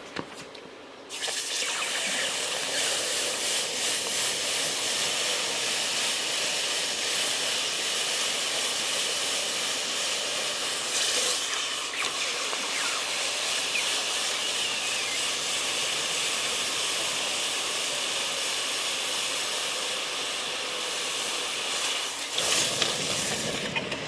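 Hot 4140 steel block quenched in a bucket of water for hardening, the water hissing and boiling steadily around it. The hiss comes on suddenly about a second in as the steel goes under.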